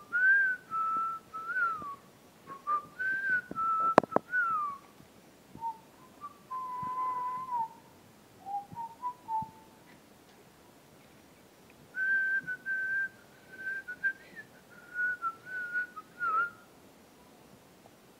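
A man whistling a tune in short phrases with sliding notes, pausing between groups of phrases. A sharp click about four seconds in.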